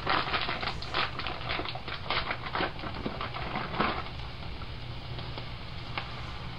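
Dry Hamburger Helper pasta pouring into the skillet, a fast irregular pattering clatter for about four seconds, then a steady low hiss.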